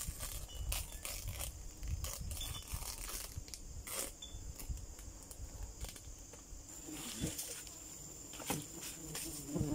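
Rubbing, scraping and clicking as a wooden stingless-bee hive box is opened by hand and the propolis-stuck cover sheet is peeled up off the honey pots.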